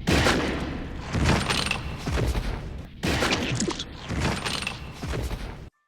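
Dense action-scene sound effects from an animated film soundtrack: rapid volleys of impacts, blasts and crashes that run in two stretches, with a brief break about three seconds in. They cut off abruptly just before the end.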